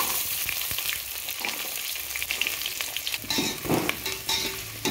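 Chopped onions sizzling in hot oil in a metal pot, the hiss loudest just after they go in. A metal slotted spoon scrapes and clicks against the pot as they are stirred.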